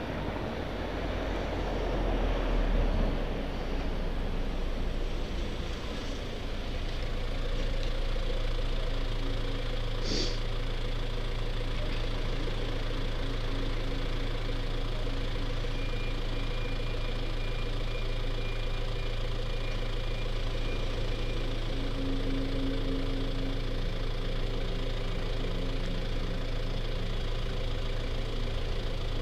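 A motor vehicle's engine idling close by, a steady low hum, with a louder low rumble about two seconds in.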